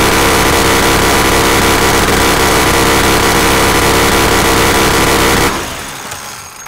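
M134 minigun firing one continuous burst of plastic training rounds at about 3,000 rounds a minute (50 a second), heard as a loud, steady buzzing blast. It stops abruptly about five and a half seconds in, leaving a short fading tail.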